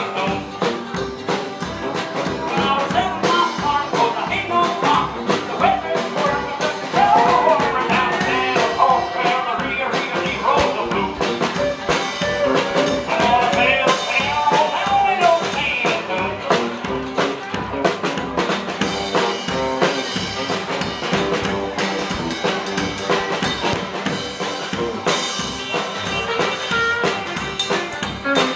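Rockabilly band playing live: guitars over a steady drum beat, with a melodic line bending and weaving above.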